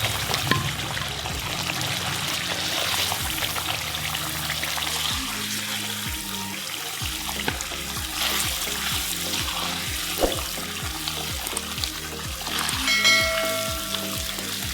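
Thick butter chicken gravy being spooned out of the cooking pan into a serving bowl: wet spooning and scraping. Background music with a steady beat underneath.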